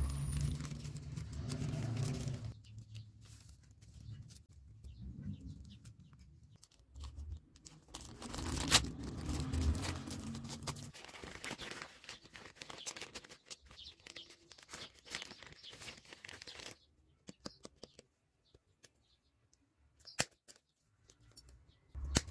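Thin plastic mailer bag being handled, peeled and folded close to the microphone: irregular rustling and crinkling with scattered sharp clicks, one louder snap about nine seconds in. It falls nearly quiet for several seconds near the end, broken by a few isolated clicks.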